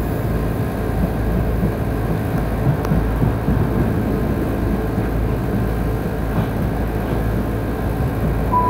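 Steady rumble of a moving passenger train heard from inside the carriage, with wheels running on the rails. At the very end a chime tone starts.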